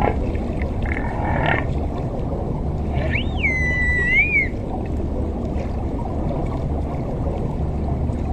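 An animal's single high, gliding call a few seconds in, rising sharply then falling and holding before a short lift at the end, over a steady low rumble.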